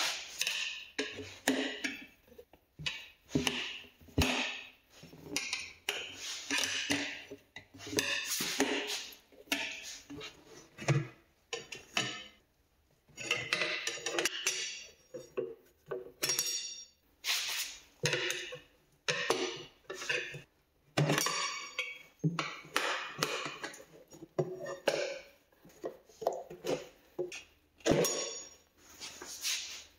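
Metal tire levers clinking against a motorcycle wheel rim and scraping the tire bead as the tire is worked over the rim by hand, in irregular strokes about once a second.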